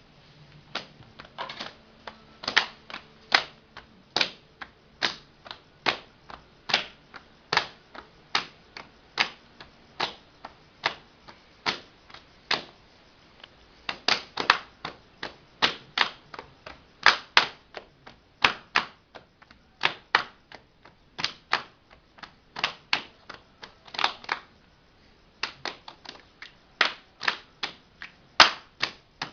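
Body percussion: a long run of sharp, clicking hits made with the body, roughly two a second in an uneven rhythm, with a brief pause near the end.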